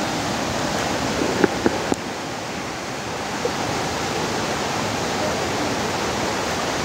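Forest stream rushing over rocks in a steady hiss of water, with a few brief knocks just under two seconds in.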